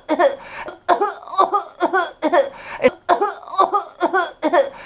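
A woman acting out someone choking: a quick run of short voiced coughing and gagging sounds, about three or four a second.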